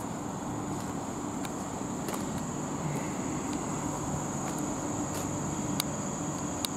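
Class 387 electric multiple unit standing with its equipment running: a steady low hum and a constant high-pitched whine, with a few faint clicks.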